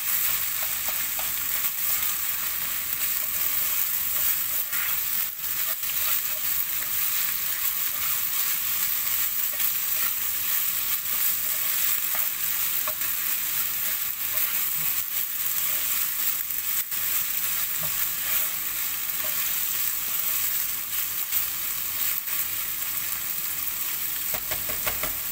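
Minced beef filling with tomato paste and beef stock sizzling steadily in a pan as it cooks, with scattered light clicks throughout.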